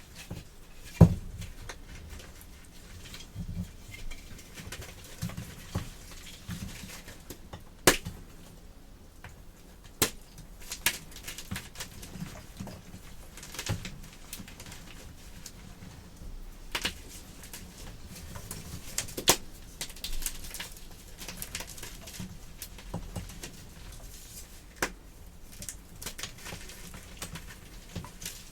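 Baked chalk crunching and crumbling: irregular sharp crunches and crackles, a few much louder snaps among them.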